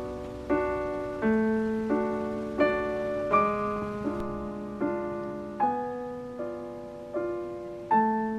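Soft piano background music: notes and chords struck about every 0.7 seconds, each ringing and fading before the next.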